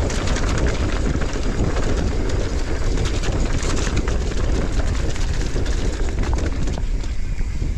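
Mountain bike rattling down a rough, stony track: tyres crunching over loose rock, with scattered clicks and clatters from the bike, over a steady low rumble of wind on the handlebar camera's microphone.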